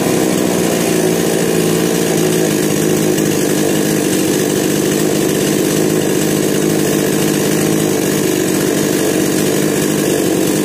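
Himax 58 cc two-stroke petrol chainsaw engine running steadily with no load on the chain. It runs smoothly, its starting fault cured by a new carburetor and spark plug.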